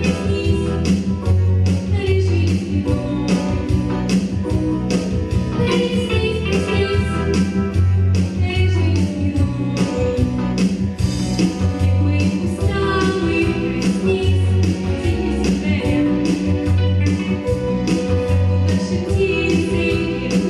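Pop song with singing over a band accompaniment of drums, bass and guitar, with a steady beat.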